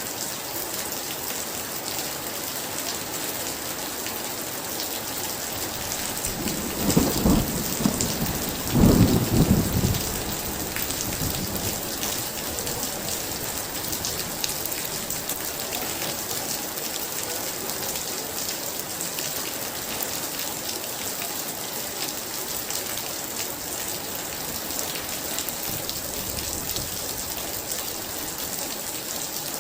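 Very heavy rain falling steadily, with a clap of thunder about seven seconds in and a second, louder crash about two seconds later, rumbling away within a couple of seconds.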